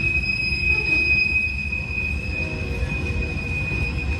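Long Norfolk Southern freight train rolling past, its wheels giving one steady high squeal over the low rumble of the cars.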